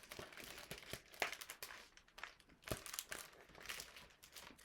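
Faint crinkling and rustling of a picture book being handled, with scattered short crackles.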